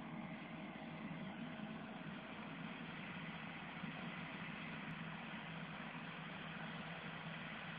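Massey Ferguson 4355 tractor and the SIP Tornado 80 harvester it works with, running steadily: an even, unbroken engine and machinery noise.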